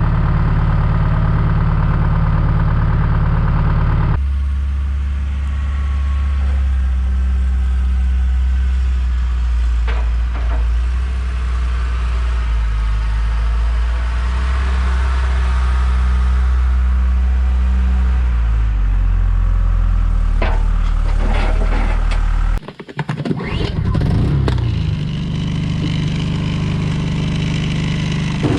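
John Deere 310G backhoe's diesel engine running steadily after a cold start without glow plugs. The tone shifts about four seconds in and breaks off briefly near the end, with a few sharp clicks along the way.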